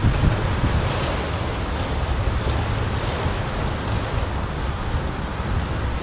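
Strong wind rushing steadily through the needles and branches of a pine tree, a surf-like hiss, with wind buffeting the microphone as a low rumble underneath.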